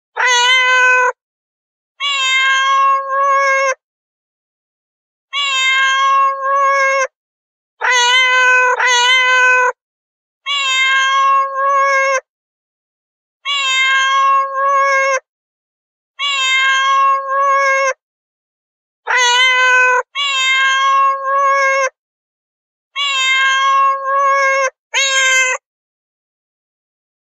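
Domestic cat meowing over and over: about ten long, drawn-out meows of steady pitch, each lasting a second and a half to two seconds, with silence between them.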